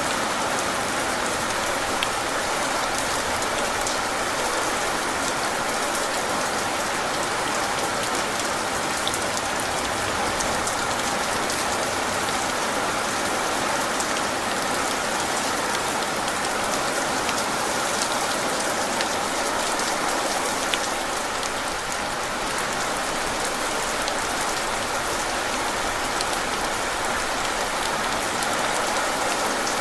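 Steady rain falling on a hard surface, a dense even patter with scattered individual drops ticking and no thunder.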